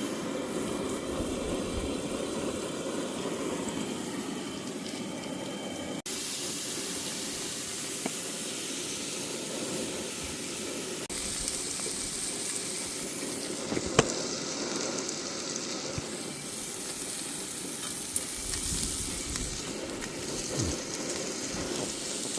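Shallow valley stream running over rocks: a steady rushing that changes abruptly twice, with one sharp click partway through.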